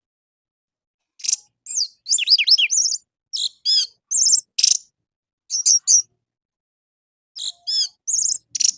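Orange-headed thrush (anis merah) singing: rapid, varied phrases of high whistles, sweeps and trills in four bursts with short pauses between them, beginning about a second in.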